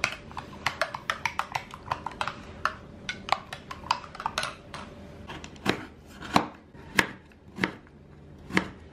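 A metal spoon clinking quickly against a glass measuring jug as a liquid mixture is stirred. From about halfway, a knife chopping a hard block of sugar on a wooden cutting board, about three strikes every two seconds.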